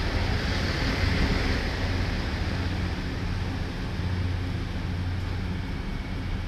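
Taiwan Railway Tze-Chiang diesel multiple unit running along the platform: a steady rumble with a low diesel drone that swells and fades, growing gradually quieter.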